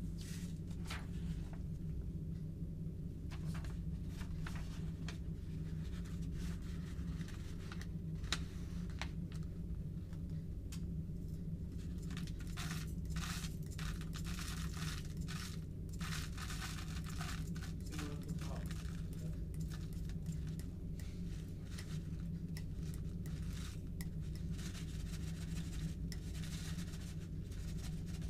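Dry sunflower husks and a folded sheet of paper rustling and crinkling as the husks are tipped into a glass flask, with scattered light clicks, heaviest in the middle and near the end. A steady low hum runs underneath.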